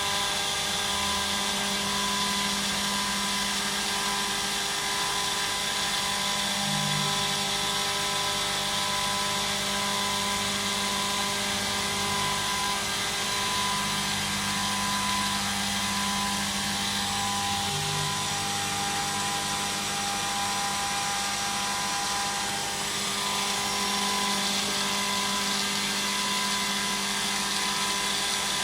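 Bridgeport Boss 10 CNC milling machine with an Ajax control running a program to mill a circular pocket: a steady machine whine with a high ringing tone, under lower motor hums that come and go every few seconds.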